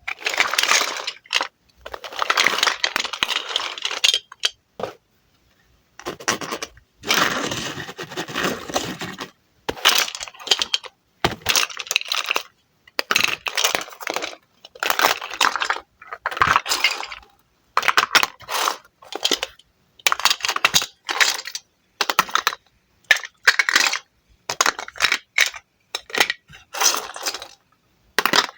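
A knife cuts through wooden toy fruit over and over. Some strokes are longer and rasping, lasting a second or two, and between them come short sharp clicks and knocks as the pieces come apart and touch, with brief pauses.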